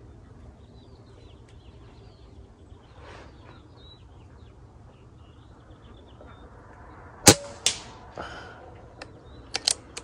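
A scoped rifle fired twice, about seven seconds in and again near the end, each sharp shot followed within half a second by a second, quieter crack, with a brief ring after the first pair.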